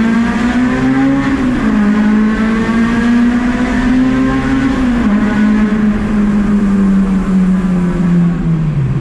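Honda K20A2 2.0-litre inline-four, swapped into a Civic EG, revving hard on the VTEC high-rpm cam. The note climbs and drops sharply at two upshifts, about a second and a half in and about five seconds in. Near the end the revs fall away as the driver lifts off.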